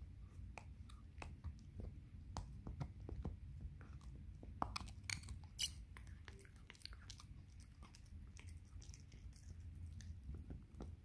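Shiba Inu gnawing on a hard yak milk chew: irregular clicks and crunches of teeth biting and scraping the chew, with a louder run of clicks about five seconds in.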